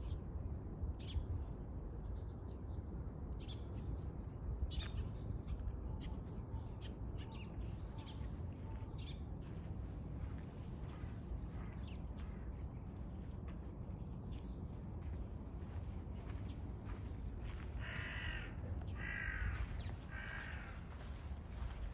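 A crow cawing three times, about a second apart, near the end, over a steady low rumble.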